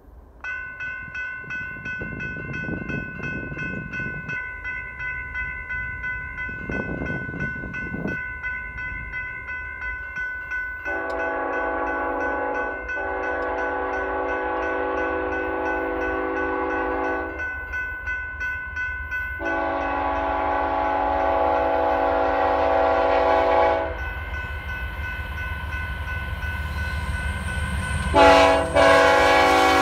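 Railroad grade-crossing warning bell starts ringing about half a second in, a rapid, steady clanging. A BNSF diesel freight locomotive then sounds its air horn in long blasts. The low rumble of the locomotives' engines grows near the end as the train draws close.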